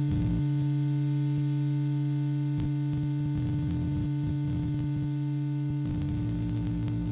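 Ciat Lonbarde Plumbutter and Cocoquantus synthesizer patch, with a touch of spring reverb, holding a steady humming drone of a few low tones. A gritty low noise layer is absent at first and comes back in about six seconds in, with a few faint clicks along the way.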